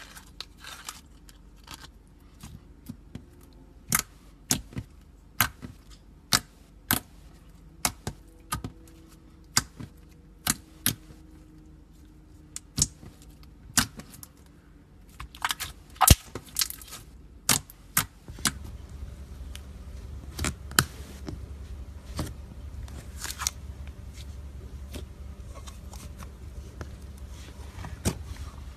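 Slime being pressed and worked by hand, with trapped air popping in sharp, irregular clicks about one or two a second. A low steady hum comes in about two-thirds of the way through.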